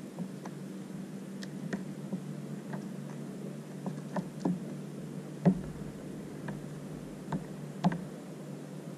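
Irregular light ticks and knocks on a drifting sit-on-top fishing kayak, about one or two a second, with two sharper knocks about halfway through and near the end, over a steady low hum.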